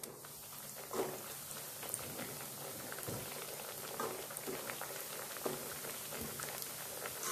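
Bread slices deep-frying in hot cooking oil: a steady sizzle with bubbling and scattered crackles. It grows a little in the first second as more slices go into the oil.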